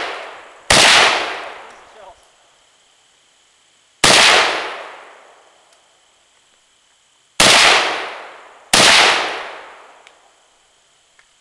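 Norinco SKS semi-automatic rifle in 7.62×39mm fired four times: single shots about a second in and at four seconds, then two shots about a second and a half apart. Each crack is followed by a long echo that dies away over about a second and a half.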